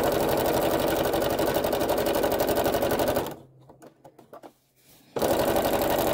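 Sewing machine running fast in free-motion stitching, its needle going up and down in a rapid even rhythm. It stops about three seconds in, leaving a couple of seconds of near quiet with a few faint clicks, then starts stitching again near the end.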